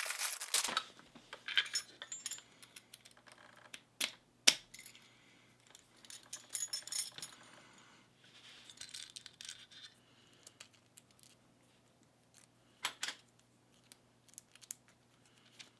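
Key and thin metal shim clicking and jingling against an Abus 72/40 padlock as the shim is worked into the lock to free the plug. The clicks come in short, scattered clusters, with a few sharper ticks.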